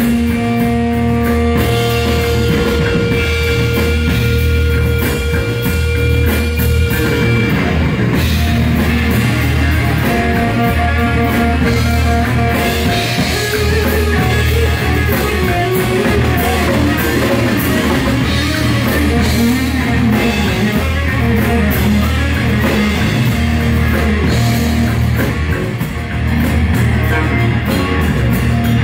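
Live rock trio playing: lead electric guitar through Marshall amplifiers over drums and bass guitar, with no singing. The guitar holds long sustained notes for the first several seconds, then plays busier runs.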